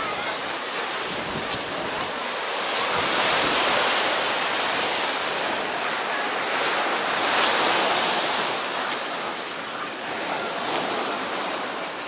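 Small waves of the Sea of Azov breaking and washing up a sandy shore, a steady rush that swells twice, around four and eight seconds in.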